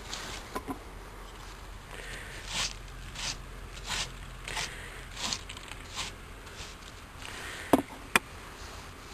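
Repeated short scraping strokes, about one every two-thirds of a second, followed near the end by two sharp knocks in quick succession.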